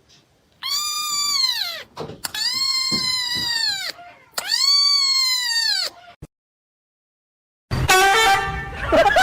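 A cat giving three long, drawn-out meows, each rising and then falling in pitch. After a short break, a different pitched sound starts near the end.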